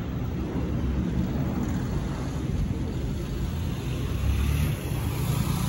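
Airbus A319-132's IAE V2500 turbofans heard from the ground as a steady low rumble while the airliner passes high overhead, swelling slightly about four seconds in.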